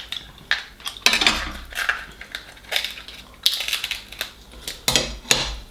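King crab leg shells being cracked and broken open by hand: irregular sharp cracks and crunches.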